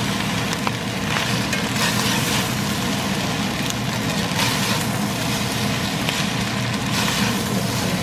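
Fried rice sizzling in a cast iron pan while a metal spatula stirs it, scraping the pan in irregular strokes about once a second, over a steady low hum.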